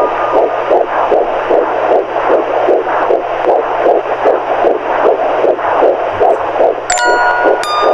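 Womb sound: a rhythmic whooshing pulse, like a heartbeat heard through fluid. About seven seconds in, bell-like lullaby notes come in over it.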